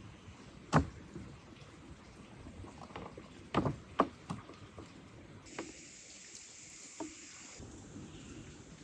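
Kitchen knife cutting up raw chicken on a wooden cutting board: a few sharp knocks of the blade against the board, one about three-quarters of a second in and a quick cluster around three and a half to four seconds, with fainter ones later. A steady hiss runs for about two seconds past the middle.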